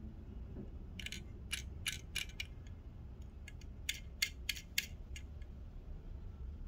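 Two quick runs of light, sharp clicks, about six around a second in and about five near four seconds in, from a small 1:64 die-cast model car being handled and turned in the fingers.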